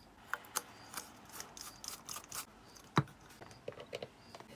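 Faint handling sounds: light clicks and rubbing of plastic parts as a repaired LED bulb in a lamp holder is readied for testing, with one sharp click about three seconds in, then small clicks as a mains plug is pushed into a power strip near the end.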